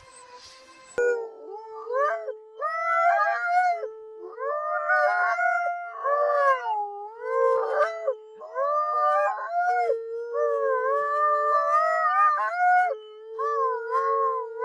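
Long, wavering howling calls start about a second in, their pitch bending up and down, over a steady lower held tone.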